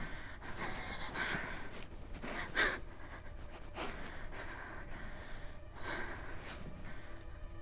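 A distressed young woman gasping and breathing raggedly while crying, in a run of sharp breaths about a second apart; the loudest gasp comes about two and a half seconds in.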